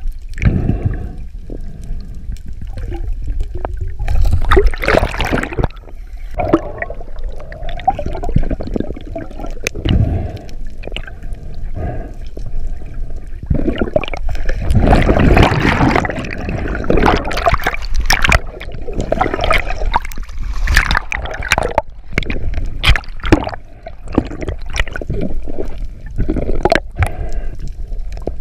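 Underwater sound heard through an action-camera housing: a muffled rush of water and gurgling bubbles that swells and fades, with scattered sharp clicks and knocks.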